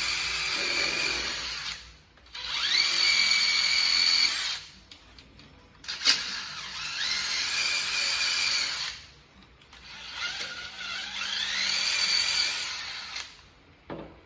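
Cordless impact gun run in four bursts of two to three seconds each, working rusty bolts loose. After the first gap each run starts with a rising whine as the motor spins up, then holds a steady tone.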